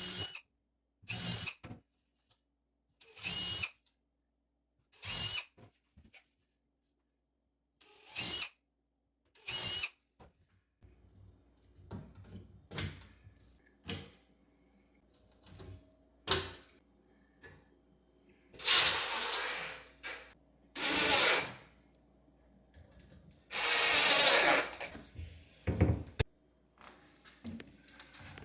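Power drill run in short bursts while cabinet handles are fitted: about six brief whines of about half a second each, then several longer, louder runs near the end, with light knocks in between.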